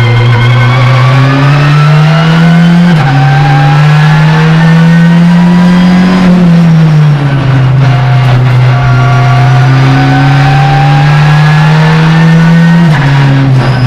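Touring race car engine heard from inside the cockpit under hard acceleration, its pitch climbing and dropping sharply at an upshift about three seconds in and again near the end. Around the middle it eases off and falls over a second or so, then holds low before pulling up again.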